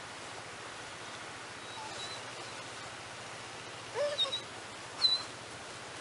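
A few short, high animal calls with quick rising pitch, a cluster about four seconds in and a sharper, louder one about five seconds in, over a steady background hiss.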